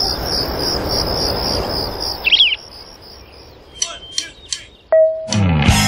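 Evening nature ambience: crickets chirping in a high pulsing trill over a soft wash of background noise, with a bird chirp about two seconds in and a few faint chirps after it. A short tone sounds near the end, and music comes in just before the end.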